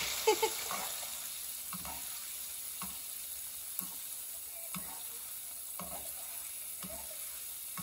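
Bacon-wrapped filet mignons sizzling steadily in hot fat in a frying pan with onions and garlic. A spoon basting them makes a short scoop or scrape about once a second.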